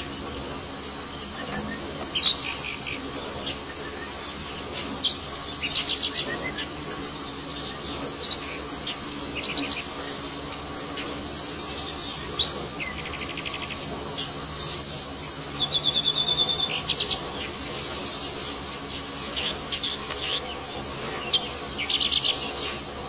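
Forest insect chorus: a steady, high-pitched buzzing drone. Birds call over it with short chirps, quick rattling trills and one brief whistled note.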